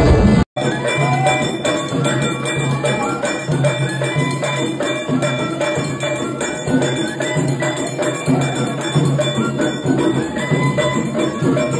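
Rhythmic music led by ringing bell-like metal percussion on a steady, repeating beat. It starts after a brief drop-out about half a second in.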